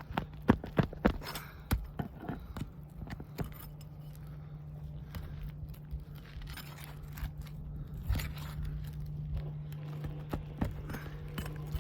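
Roof-snake shingle-removal tool scraping and knocking under roof shingles as a shingle is pried loose from its nails, with a cluster of sharp clicks and knocks in the first few seconds and smaller ones after. A steady low hum sits underneath.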